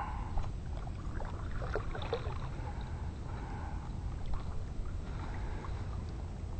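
Wind buffeting the microphone over water lapping against a kayak hull, with a few faint small knocks.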